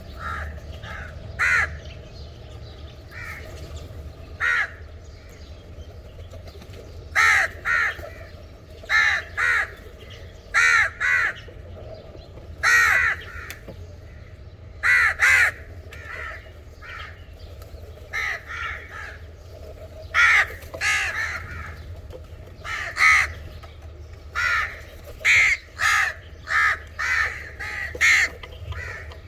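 Crows cawing: many short, harsh caws, some single and some in quick pairs or runs, at irregular intervals, over a steady low rumble.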